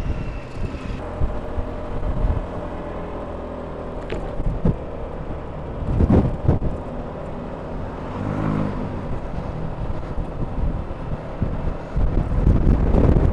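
Motor scooter running while riding in city traffic, a steady engine and road rumble with wind on the microphone. A couple of sharp knocks come about six seconds in, and a short low pitched sound a couple of seconds later.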